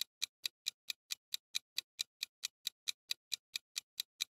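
Clock-ticking sound effect for a quiz countdown timer: even, rapid ticks, about four or five a second.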